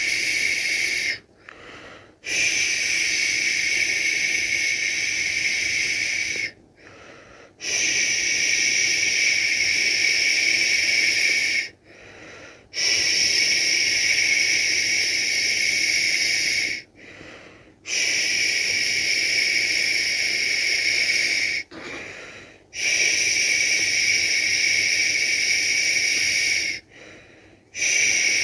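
A person shushing a baby to sleep: long steady 'shhh' sounds of about four seconds each, repeated over and over, with a short pause for breath of about a second between them.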